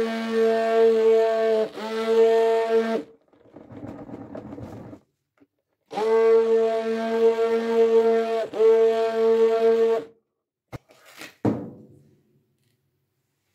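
Old hand-held immersion blender running in a bucket of soapy liquid with a steady buzzing hum. It comes in two runs of about three and four seconds, each with a brief dip, and a quieter noisy stretch between them; the short runs keep the old motor from overheating. Near the end come a click and a knock as it is switched off and lifted out.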